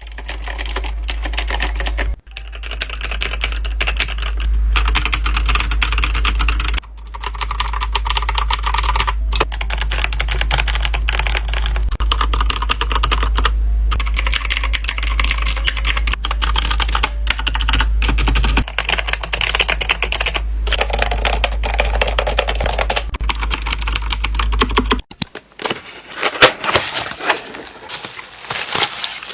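Fast, continuous typing on a computer keyboard: a dense stream of key clicks, broken by short gaps a few times. A low steady hum sits underneath for most of it and stops near the end.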